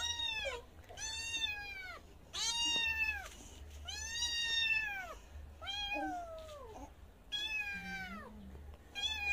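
Young kitten meowing over and over: about seven high, drawn-out cries, each about a second long, with short gaps, while a toddler picks it up and carries it dangling.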